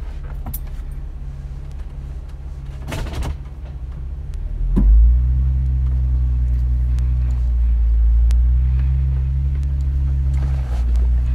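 Jeep engine idling low and steady, then a knock about five seconds in as the engine comes under load and runs louder while the Jeep crawls up a rocky shelf in low range. A brief scuffing noise comes just before the midpoint.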